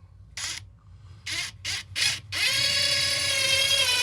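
DeWalt DCF860 impact driver in its lowest speed setting, driving a trim head screw without impacting. Four short bursts come first, then a steady motor whine from about halfway in.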